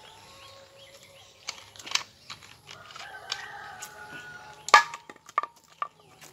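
Clicks and taps from a plastic Coca-Cola bottle being handled, with one loud sharp crack a little under five seconds in, then a few knocks like footsteps on wooden planks.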